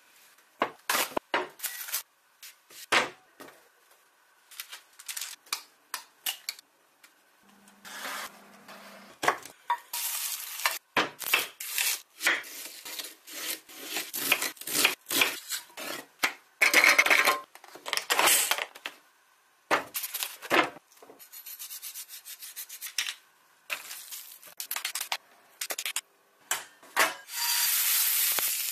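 Kitchen prep sounds: bread dough rubbed and pressed as it is kneaded on a board, then a chef's knife cutting an onion on a wooden board in a run of short, sharp cuts. Near the end, a minced-meat patty sizzles steadily in a frying pan.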